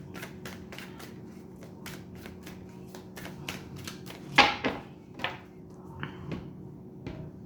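A tarot deck being shuffled by hand: a run of light, irregular card clicks and slaps, with a few louder brief sounds about halfway through.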